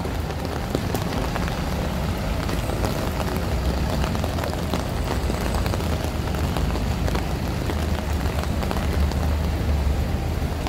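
Rain and city traffic on a wet street: a steady hiss of rain over a low, continuous rumble of engines and tyres.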